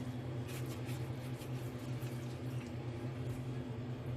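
Soft squishing and scraping strokes as ketchup is spread over raw pizza dough, over a steady low electrical hum.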